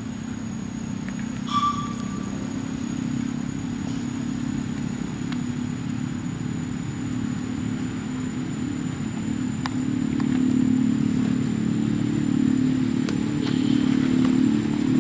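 An engine running steadily with a low drone, growing louder about ten seconds in.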